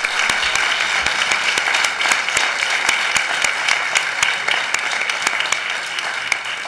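Crowd applauding: many people clapping steadily, beginning to die down near the end.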